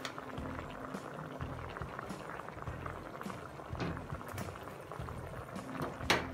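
Steady bubbling and crackling of liquid simmering in a pressure cooker pot beneath a layer of rice, with a sharp click near the end.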